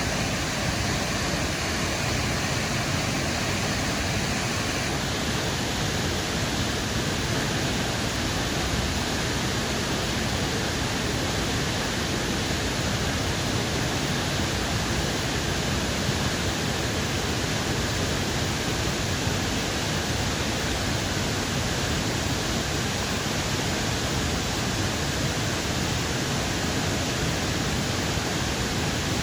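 Steady rushing of falling water: an even, unbroken roar of a waterfall or cascading creek.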